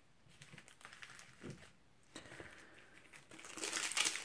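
Panini trading-card packet wrapper crinkling and tearing as it is handled and opened, starting about three seconds in, after a few faint taps of cards being set down.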